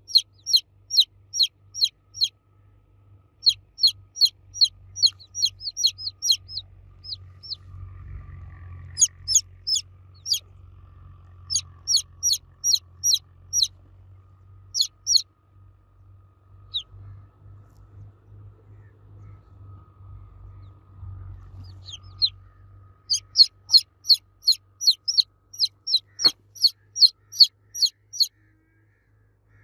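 Baby chicks cheeping loudly: runs of short, high, downward-sliding peeps at about three a second, broken by pauses, over a faint steady low hum.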